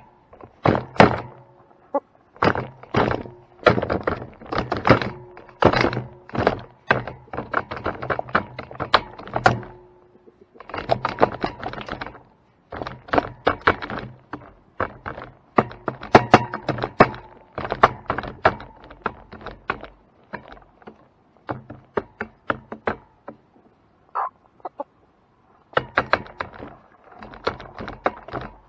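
Chickens pecking birdseed off a hard surface: rapid clusters of sharp taps and knocks, pausing briefly now and then, with a little soft clucking.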